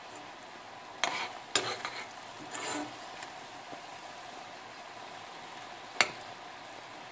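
Thick sugar syrup with candied orange peel cubes bubbling in a pan, the syrup reduced to a heavy, jam-like consistency. A metal spoon stirs it and clicks against the pan about a second in and again half a second later, scrapes briefly, and gives a sharp knock about six seconds in.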